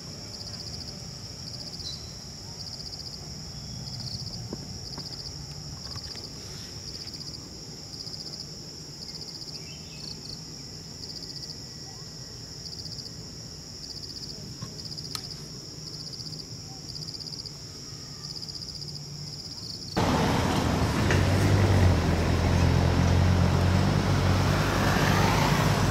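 A steady, pulsing high drone of insects over faint low background hum. About 20 seconds in it cuts abruptly to a much louder low rumble with a steady engine hum from a vehicle.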